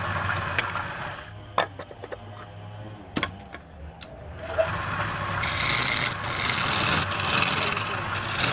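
Wood lathe motor humming while a hand-held chisel cuts the spinning wood, with a steady scraping hiss of shavings. About a second in the cutting stops for a few seconds, leaving the motor hum and a few sharp knocks, then the cutting starts again and grows louder.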